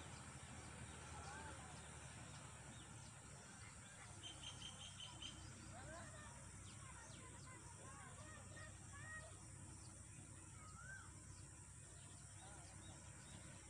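Faint outdoor birdsong: scattered short chirps and whistles from small birds, with a quick run of about six short high notes about four seconds in.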